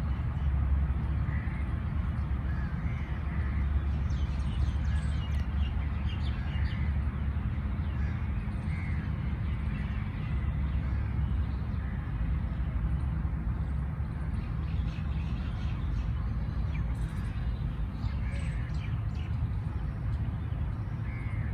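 Birds calling outdoors, short calls repeated every second or two, with a few higher chirps, over a steady low rumble.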